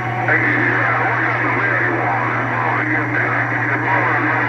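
CB radio receiver hiss with faint, garbled voices of other transmissions beneath it, over a steady low hum.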